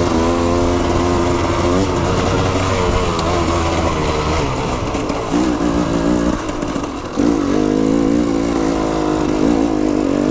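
Enduro motorcycle engine being ridden hard off-road, its pitch climbing and falling repeatedly as the throttle is opened and closed, with a brief drop in level about seven seconds in.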